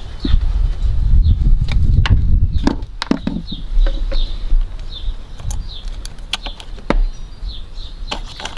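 A small bird chirping over and over in short high chirps, about two a second, over a low rumble that is strongest in the first few seconds, with a few sharp clicks scattered through.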